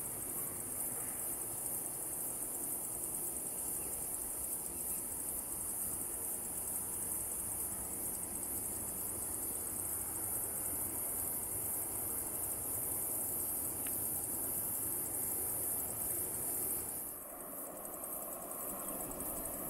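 Steady high-pitched chorus of summer insects, a dense shrill trilling, over a broad low background hum; the level dips slightly and the chorus changes a little near the end.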